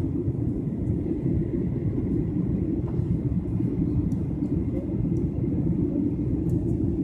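Steady low rumble of a jet airliner in cruise flight, heard from inside the passenger cabin at a window seat: engine and airflow noise with no change in pitch or level.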